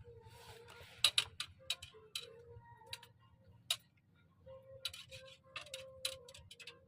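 Irregular sharp clicks and ticks, some in quick clusters, with short faint tones between them.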